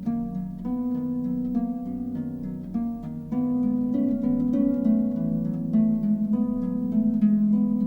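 Instrumental music of plucked-string notes, each ringing on over the next; the playing gets louder about three seconds in.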